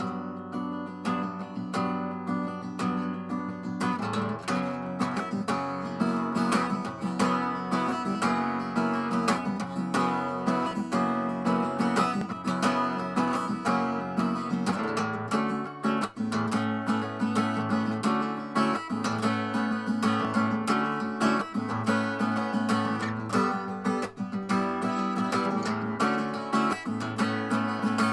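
Background music: strummed acoustic guitar playing chords in a steady rhythm, filling out about four seconds in.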